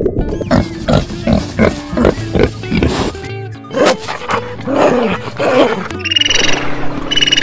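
Animal calls laid over background music: a run of short, low calls with bending pitch, then high whistling squeaks from dolphins in the last second and a half.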